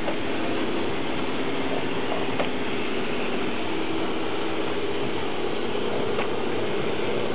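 L-class steam locomotive working, heard as a steady rush with a fast mechanical rattle and a couple of faint knocks.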